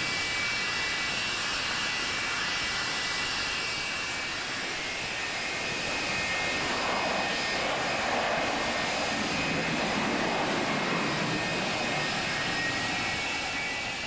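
Boeing 767 freighter's twin jet engines running: a steady jet roar with a high-pitched fan whine. The roar swells about halfway through and starts to fade near the end.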